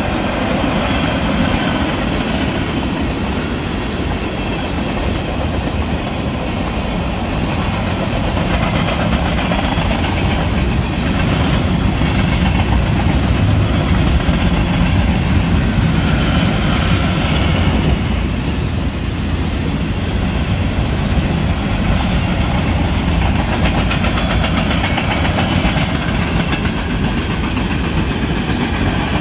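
Freight train cars (tank cars, boxcars and covered hoppers) rolling steadily past: a loud, continuous rumble of steel wheels on the rails with a rhythmic clicking over the rail joints.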